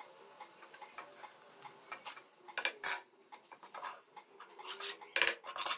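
Metal spoon scraping and clinking against the inside of a pressure cooker as fried onions are scooped out, in scattered light taps, with a small cluster a little before the middle and another near the end.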